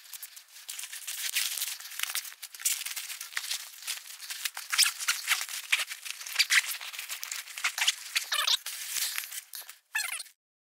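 A nylon Cordura backpack being handled, folded and rolled up: fabric rustling and crinkling with many small crackles and scrapes, stopping shortly before the end.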